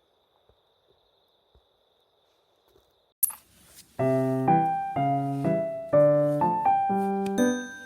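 Near silence with a faint, steady high tone, then a sudden sharp sound a little after three seconds. About four seconds in, background piano music starts, with notes and chords struck roughly twice a second.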